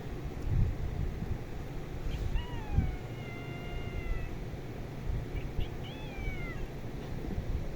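A cat meowing twice: a long drawn-out meow a couple of seconds in, then a shorter meow that falls in pitch about six seconds in.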